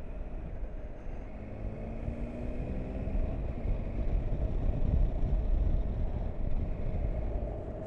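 Motorcycle engine running under way with a low rumble of wind and road noise; the engine note rises as it accelerates a second or two in, and the sound grows loudest about five seconds in before easing off.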